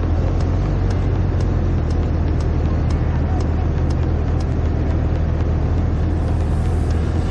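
Motorcycle on the move at steady speed: a steady low engine drone under a rush of wind and road noise, with faint regular ticks about twice a second.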